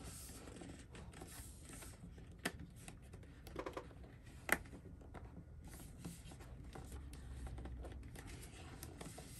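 Faint rustling of a cardboard box being closed by hand, its lid and flaps pressed shut, with a few sharp taps and clicks, the loudest about four and a half seconds in.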